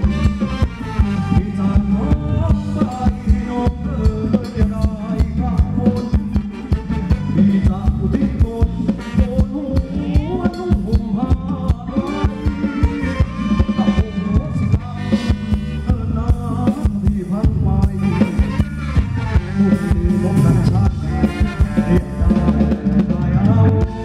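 Live band playing upbeat Thai ramwong dance music, with a steady drum beat, a strong bass and a melody line over it.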